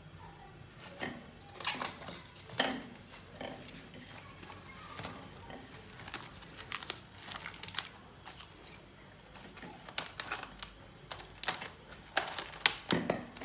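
Plastic cling film being stretched over a glass bowl and pressed down around its rim, crinkling with scattered crackles and snaps that grow louder near the end.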